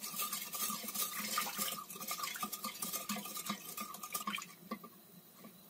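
Wooden spoon stirring sugar and water in a stainless steel pot: repeated swishing strokes through the liquid that thin out and stop about five seconds in. The sugar is being stirred until it dissolves into a thin syrup.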